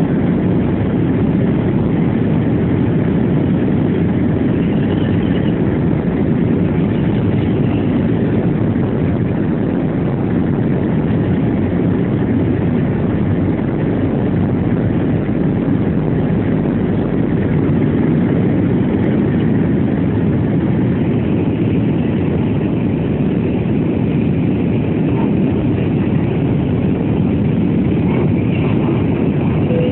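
Steady roar of an airliner's jet engines and rushing air, heard inside the passenger cabin as the plane climbs after takeoff.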